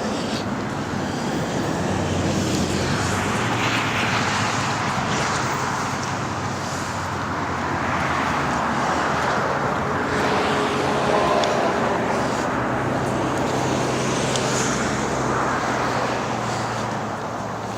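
Road traffic noise: a steady low engine hum with vehicles swelling past several times.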